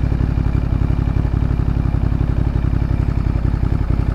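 Ducati Monster's L-twin engine idling steadily at a standstill, a fast, even low pulsing.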